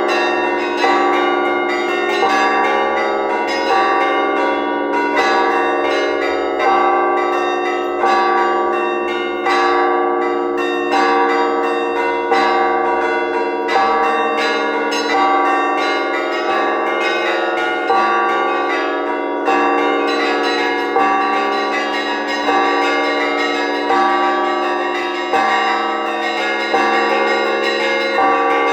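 Orthodox festive church bell ringing: a set of bells rung together in a repeating pattern, a heavy stroke about every second and a half over quicker chiming of the smaller bells. The small bells grow busier about two-thirds of the way in.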